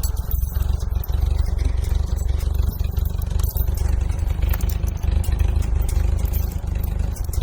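Tractor engine running steadily under load, with scraping and clattering as brush and branches are pushed along.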